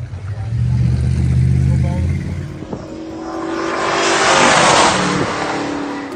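A muscle car's engine running with a low exhaust note. Then a car drives past at speed, its engine and road noise swelling to a peak about four and a half seconds in and fading away.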